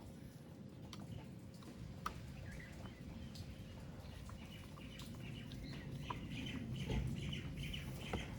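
Faint clicks and taps of small metal reel parts and tools being handled during reassembly of a Shimano Tiagra 130 reel, with a run of short high-pitched chirps from about halfway.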